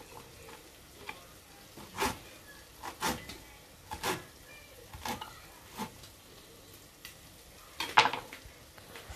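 Kitchen knife chopping herbs on a wooden cutting board: irregular sharp knocks of the blade on the wood, roughly one a second, the loudest near the end.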